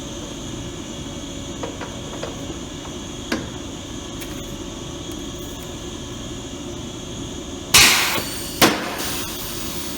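Punch press with a corner-rounding die cutting a corner: one loud, sharp crunching hit about eight seconds in, then a second sharp clack just under a second later, over a steady background hum. A few light clicks come earlier as the workpiece is handled.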